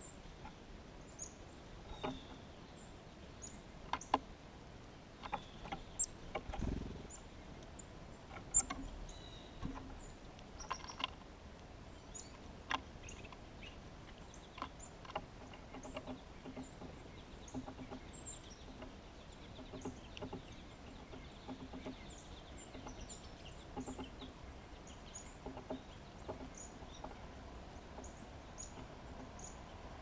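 Small songbirds calling with scattered, high, thin chirps, with a few sharp taps in the first half and a dull thump about seven seconds in.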